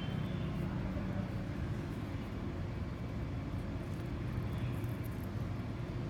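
Steady low background rumble with no distinct events; threading the line through the float makes no audible sound of its own.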